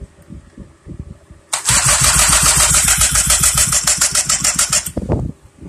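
Two-stroke bicycle kit engine being spun over with an electric drill, catching and firing in a loud, rapid pulsing run that starts about a second and a half in and cuts off about a second before the end. The engine has spark and is running for the first time.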